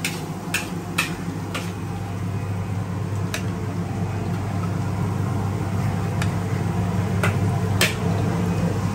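Steady low hum of the kitchen's wok stove, with scattered sharp clinks of a metal spatula and ladle against the wok and dishes, about seven in all.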